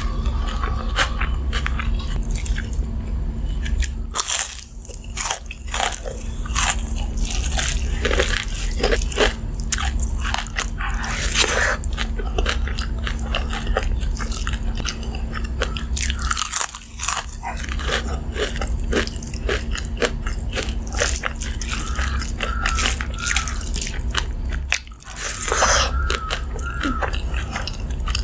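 Close-miked eating: crunchy bites and chewing of crisp fried food, over a steady low hum. The sound drops away briefly three times.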